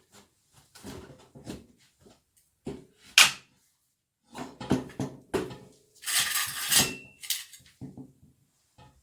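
Irregular clinks and knocks of hard objects being handled, with one sharp, loud click about three seconds in and a rasping, hissing stretch of about a second past the middle.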